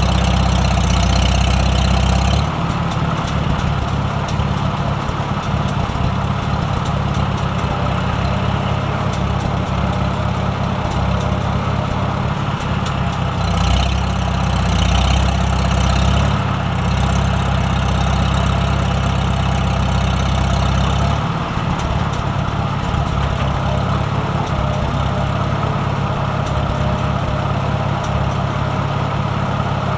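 A large engine running steadily with a low hum, its sound shifting a few times: about two seconds in, again for a couple of seconds around the middle, and about two-thirds of the way through.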